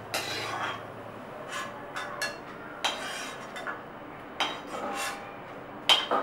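A metal slotted spoon scraping and clinking against a kadhai while fried cashews and raisins are scooped out of the ghee, a series of irregular clinks and scrapes, the sharpest near the end.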